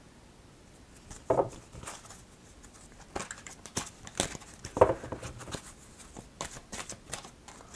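Oracle cards being shuffled and handled: a run of crisp papery clicks and slaps, with the two loudest about a second and five seconds in.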